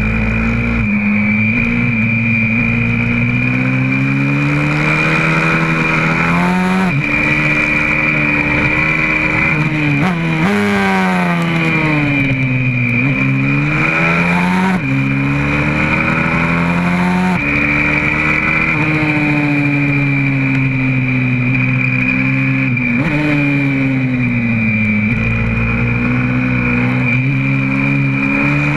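YCF 125cc four-stroke pit bike engine heard onboard while lapping a track at speed: the pitch climbs under acceleration and drops sharply at each upshift, several times, and falls away more slowly when the rider comes off the throttle for corners.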